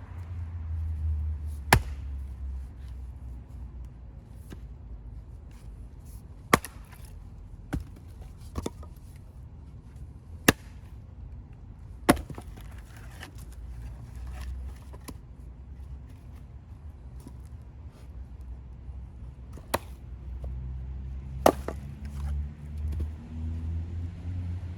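An axe splitting firewood: a series of sharp, single chopping strikes into the wood, irregularly spaced a second to several seconds apart.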